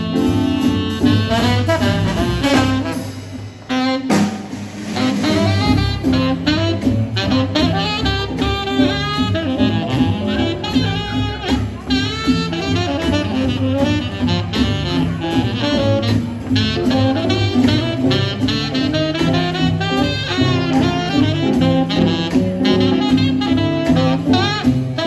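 Live small-band swing jazz: tenor saxophone playing the lead line over piano, upright bass and drums, with trombone heard at the start.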